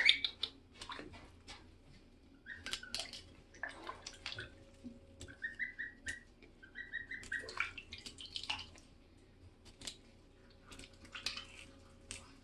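Goslings peeping: short, high whistling calls, several coming in quick runs, over light splashing of bathwater.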